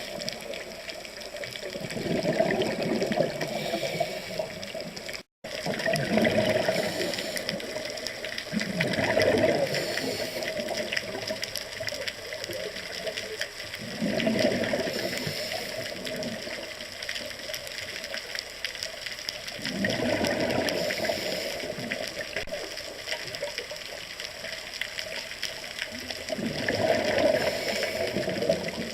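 Rushing water that swells and fades in surges every few seconds, with a brief break in the sound about five seconds in.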